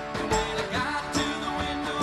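Background music: a country-style song with a steady beat, guitar and singing.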